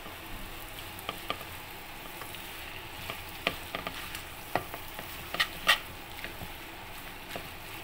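Spaghetti stir-fry with chicken and vegetables sizzling in a hot pan as it is tossed and stirred with a silicone spatula, a steady sizzle broken by scattered sharp clicks.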